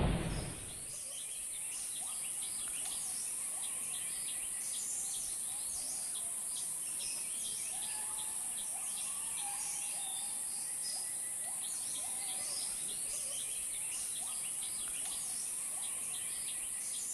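Forest ambience: a steady high-pitched insect drone with many birds chirping and calling over it. A low rumble fades out in the first second.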